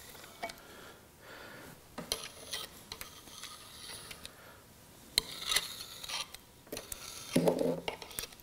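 Light clicks and metal taps from a brass oil can and the cast-iron slide of a lathe taper attachment as oil is put on the slide's ways, with a duller knock near the end.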